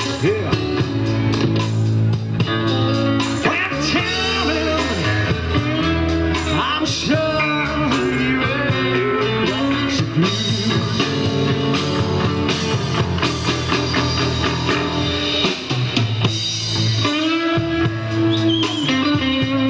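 A live rock-blues band jamming: a guitar plays lead lines full of bent, sliding notes over a steady bass and drums.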